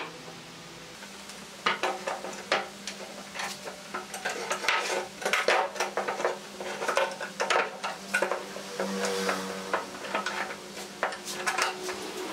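Steel pipe clamps being set up and tightened: their metal jaws and pipes clicking and clanking against each other and the workbench, with light knocks from the wooden boards. The clicks come irregularly, thicker toward the middle and near the end.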